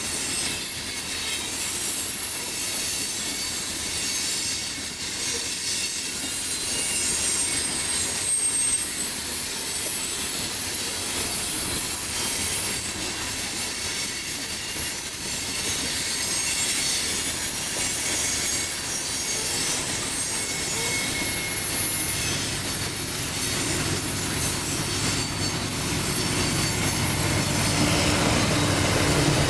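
Loaded coal cars of a CSX freight train rolling past, with a steady high screech and hiss of steel wheels on the rails. Toward the end a low diesel locomotive rumble builds underneath.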